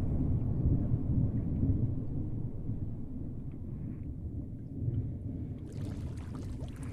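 A low, steady rumble, a little louder in the first two seconds, with a brief higher hiss near the end.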